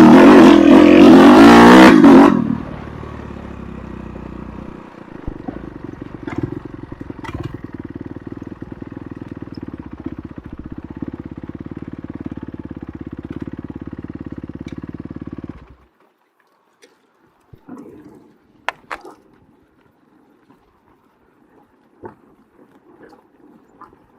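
Enduro motorcycle engine revving loudly for about two seconds, then settling to a steady idle for some thirteen seconds before cutting out abruptly. A few faint clicks and knocks follow.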